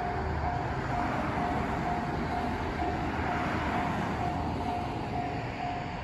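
Japanese railway level-crossing warning bell ringing, a clear electronic ding about twice a second, over a steady rumbling noise that eases off near the end.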